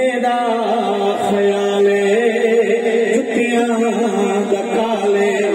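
A man's voice chanting a naat (devotional poem in praise of the Prophet), drawn out in long held notes that shift slowly in pitch.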